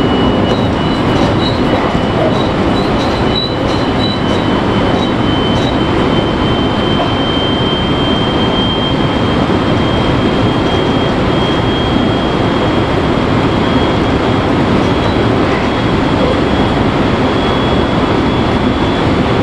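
Inside the front car of a Marine Liner electric train running at speed: a steady rumble of wheels and running gear, with a thin high whine that rises slightly in pitch.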